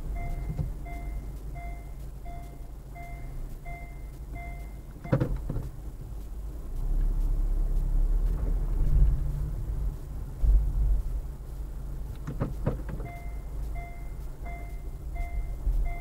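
Vehicle reversing warning beeper, a short electronic beep about every three-quarters of a second. It stops about four and a half seconds in and starts again near the end. Two knocks come, one just after it stops and one just before it restarts, over the low rumble of a car engine.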